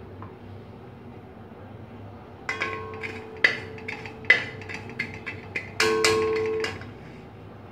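A metal spoon knocking against an aluminium cooking pot: about half a dozen sharp clinks, each setting the pot ringing. Near the end comes a longer ring of about a second. A low steady hum runs underneath.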